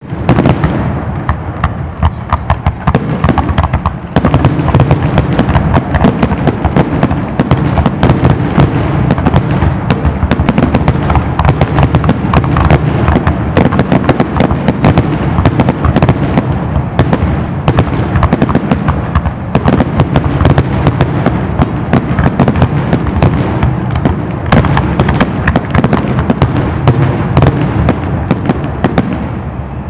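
Aerial fireworks shells bursting in a rapid, unbroken barrage of bangs and crackle, many a second, easing slightly near the end.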